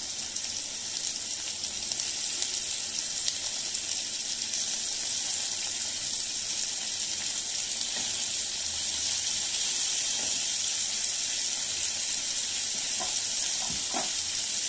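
Masala-coated anchovies sizzling as they are laid into hot oil in a frying pan, a steady hiss that grows louder as more fish go in. A few faint clicks near the end.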